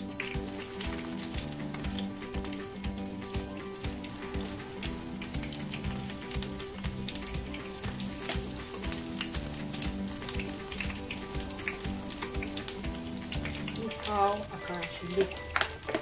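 Balls of akara batter (ground bean paste) sizzling and crackling as they deep-fry in hot oil in a frying pan, with soft background music underneath.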